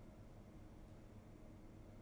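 Near silence: faint room tone in a dramatic pause between lines of dialogue.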